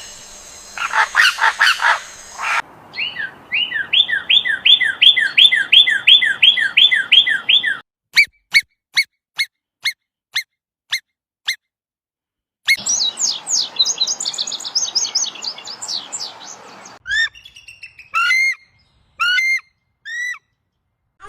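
Calls of several different birds in short clips cut one after another: a burst of harsh notes, then a fast series of repeated falling chirps, then sharp ticks about two a second, then rapid high chirping, and last a few separate calls.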